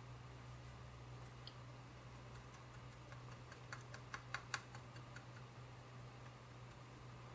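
Near silence: faint room tone with a low steady hum, and a quick run of about half a dozen light clicks a little past the middle, as the tip of a tube of silver epoxy touches a plastic spoon.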